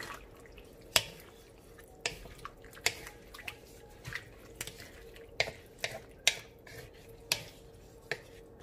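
Wooden spatula stirring sliced chayote and bottle gourd in coconut milk in a metal wok, with wet squelching and irregular sharp clicks and knocks as the spatula hits the pan's side. A faint steady hum sits underneath.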